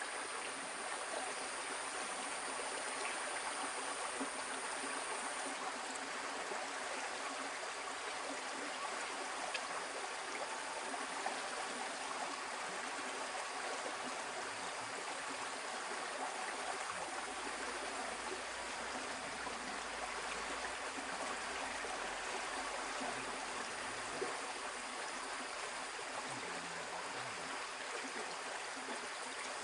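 Shallow stream water flowing and trickling steadily over stones. A faint thin high tone sounds for the first few seconds.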